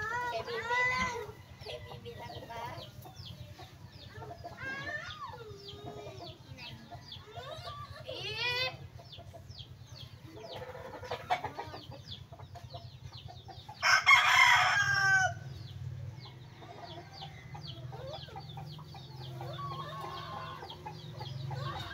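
Roosters crowing and chickens clucking, with one loud crow a little over a second long about two-thirds of the way through. Short high chirps go on throughout over a low steady hum.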